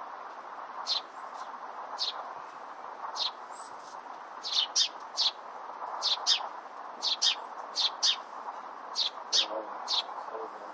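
Small birds chirping: short, sharp, high chirps, about one a second at first and then two or three a second, over a steady background hiss.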